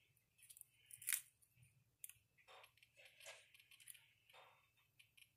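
Near silence, with a few faint clicks and rustles from hands handling an RC car's receiver and wiring; the loudest click comes about a second in.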